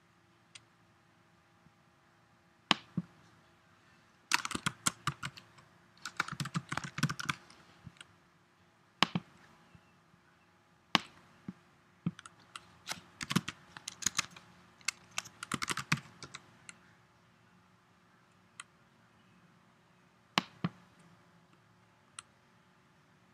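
Typing on a computer keyboard in several short bursts of quick keystrokes, with single sharp clicks spaced out in between.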